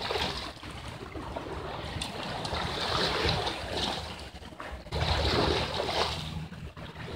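Small sea waves washing against a rocky shore, swelling and easing twice, over a low wind rumble.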